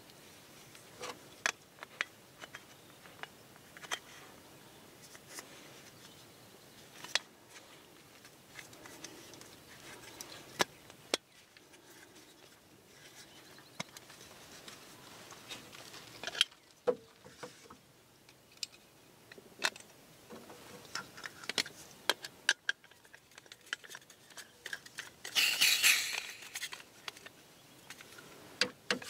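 Scattered light clicks and knocks of Jetboil stove parts, plastic cups, a metal pot and its folding red pot support, being handled and packed on a metal camp table, with a louder scraping rustle near the end.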